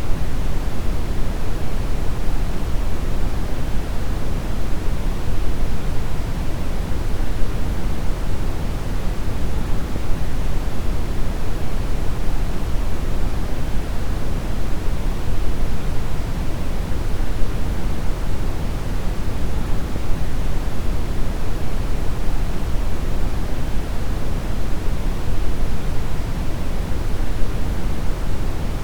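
Steady deep brown noise: an even, unchanging rushing hiss weighted heavily toward the low end, with nothing else in it.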